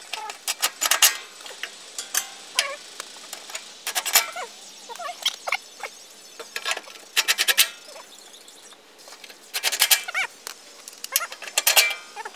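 About five short bursts of rapid clicking and clattering while the bolts of a Toyota 4Runner's plastic under-engine cover are started and run in, with the plastic panel knocking against the frame as it is held in place.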